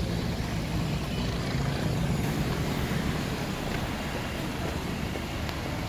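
Steady city road traffic: vehicle engines running with a low rumble, and an engine hum in the first half that fades about halfway through.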